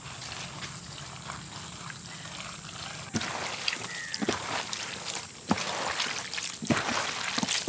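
Wet squishing and squelching of raw squid rings being mixed by hand with chilli paste on a large metal tray. It gets louder about three seconds in, with many short wet clicks and slaps.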